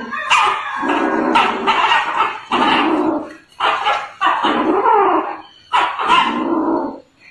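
A young animal crying out in a string of about seven harsh, pitched calls, each up to about a second long with short gaps between, during a rough scuffle.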